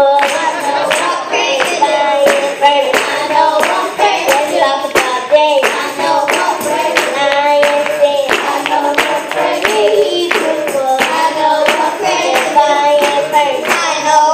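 Children singing a gospel song, a young girl leading into a microphone, with hand clapping on the beat.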